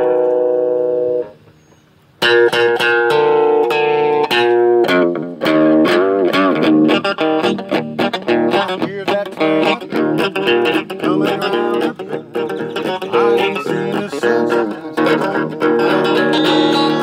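Electric guitar played through a small practice amp: a held chord cuts off about a second in, and after a gap of about a second the playing resumes with picked single notes and chords, including bent notes.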